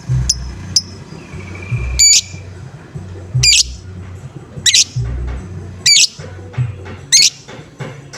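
Lovebird giving short, sharp 'ngoek' calls, five in a row about a second and a quarter apart, after two quick chirps at the start, over background music with a steady low beat.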